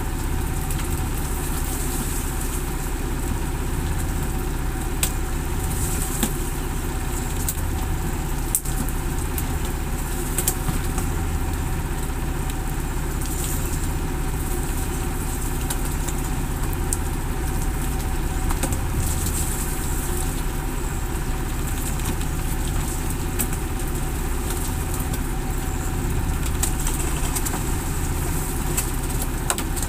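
Fishing boat's engine idling with a steady, even drone, with a few sharp ticks scattered over it.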